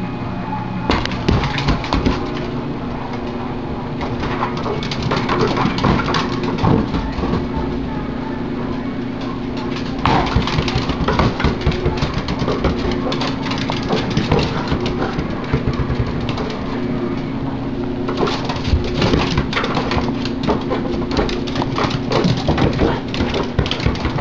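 A small dog scrambling after a balloon on a hardwood floor: bursts of rapid clicking and scuffing from claws and bumps of the balloon, over a steady low hum.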